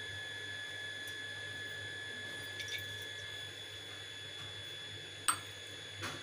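Lit gas stove burner hissing steadily under a kadai of oil heating up, with a faint high whine and one sharp click about five seconds in.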